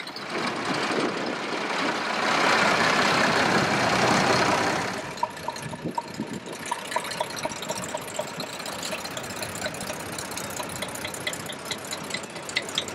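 Old tractor engines running as a column of vintage tractors drives slowly past. The sound swells for a few seconds near the start as one passes close, then settles into steady engine running with a light, evenly repeating knock.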